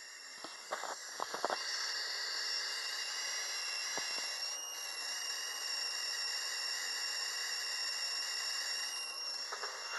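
12-volt ignition coil, switched by a MOSFET, firing a spark plug continuously: a steady hissing buzz of rapid sparks with high whining tones. It grows louder about a second and a half in, with a few sharp clicks near the start.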